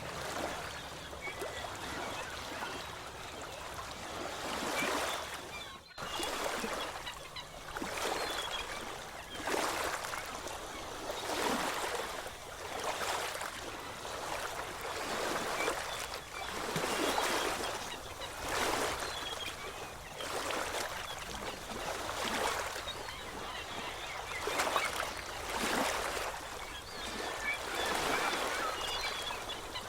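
Sea waves washing on the shore, each surge of surf swelling and falling away every two seconds or so, with faint short bird calls above it.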